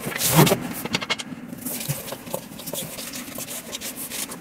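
Cardboard of an IKEA flat-pack box being handled and scraped while the furniture parts are unpacked: a loud rustle about half a second in, then continual irregular scratching and rubbing.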